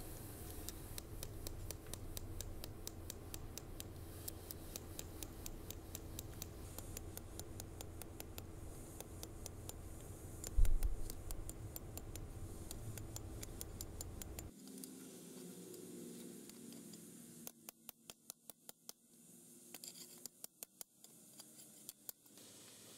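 Hammer blows on a hot steel blade lying on a stone anvil: fast runs of light, faint taps, with one louder knock about ten seconds in.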